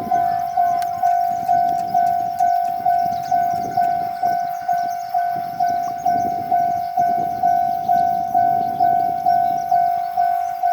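Japanese railway level-crossing warning bell ringing its repeated 'kan-kan', about two even strokes a second on one tone. A low rumble swells and fades beneath it several times.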